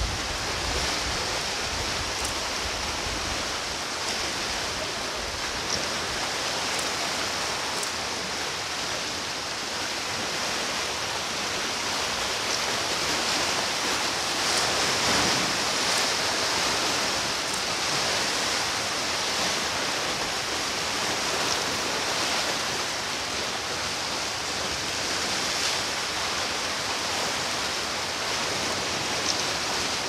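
Sea waves washing against shoreline rocks: a steady rushing wash that swells slightly about halfway through.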